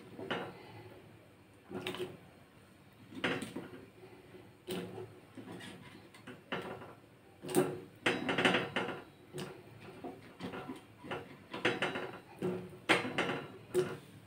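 Intermittent short knocks and clatters of kitchen utensils and a steel cooking pot being handled, about one every second and thicker in the second half.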